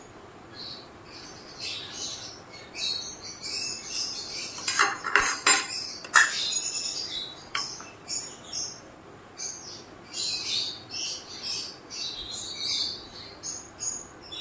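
Small birds chirping over and over in the background. About five seconds in comes a quick cluster of sharp clinks, a metal spoon against the ceramic filling bowl.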